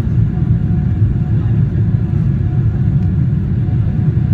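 Boeing 777-300ER's GE90-115B jet engines and airflow heard from inside the passenger cabin: a loud, steady low rumble with a faint steady hum above it.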